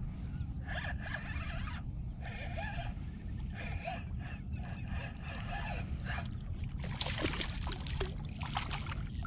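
Spinning reel cranked in spurts, a raspy whirring, while a hooked largemouth bass is played toward the boat, with the angler's mouth breathing close to the head-mounted mic. About seven seconds in, the bass thrashes and splashes at the surface beside the boat.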